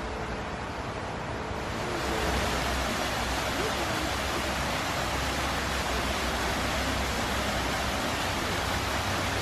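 Small waterfall splashing over rocks into a stream: a steady rush of water that gets louder about two seconds in.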